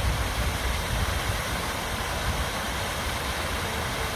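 Steady rushing of a moorland stream tumbling down its rocky clough, an even hiss with a low rumble beneath.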